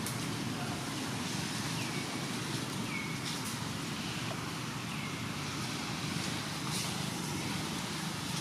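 Steady forest ambience, a constant hiss and rumble, with a few short high chirps that drop quickly in pitch, spaced a second or two apart.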